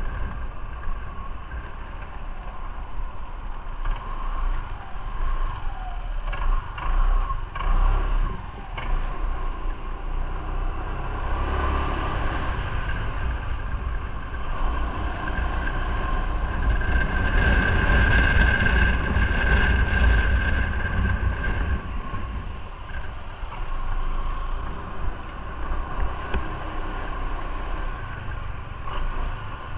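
Motorcycle engine running under way at low speed, growing louder for several seconds around the middle.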